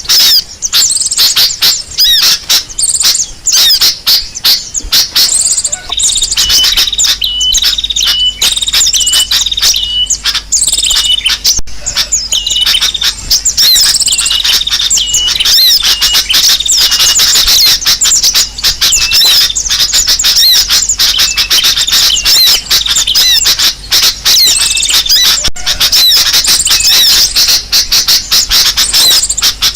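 Bird-lure recording of many small birds chirping and scolding in a dense, agitated chorus, played loud. A run of short repeated notes sounds about six seconds in and again later over the constant chirping.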